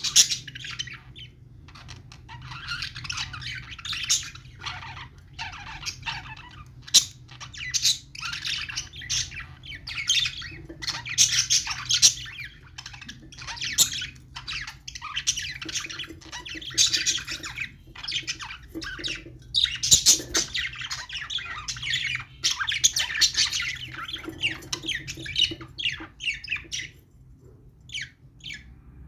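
Budgerigars chattering in a dense run of rapid squawks and chirps, the courtship chatter of a breeding pair; it thins to a few scattered chirps near the end. A steady low hum runs underneath.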